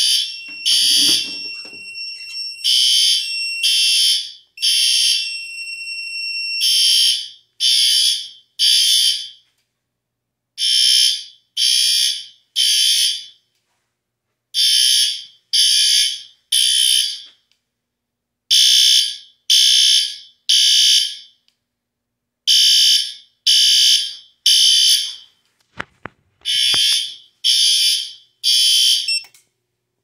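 Fire alarm horn sounding in the temporal-three evacuation pattern: loud, high blasts in groups of three with a pause after each group. The alarm was set off from a manual pull station. For the first seven seconds a steady high tone and overlapping pulses run under the blasts. There are a few clicks about 26 seconds in, and the horn cuts off just before the end.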